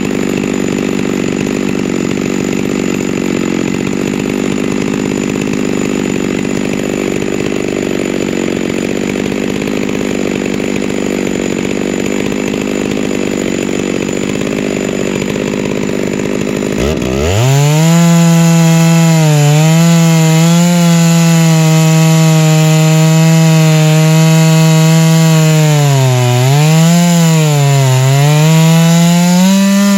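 Chainsaw mill ripping a white spruce log lengthwise, the saw running flat out. About seventeen seconds in it grows louder and its note drops a little, then dips twice near the end as the engine bogs under the load of the cut.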